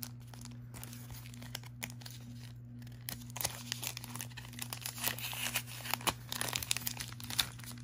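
A thin clear plastic sleeve is slit with a box cutter and pulled open by hand. It crinkles and tears, sparse at first and crackling densely from about three seconds in.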